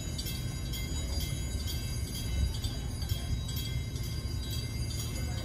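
Lift bridge's warning bell ringing rapidly, about twice a second, over a steady low rumble.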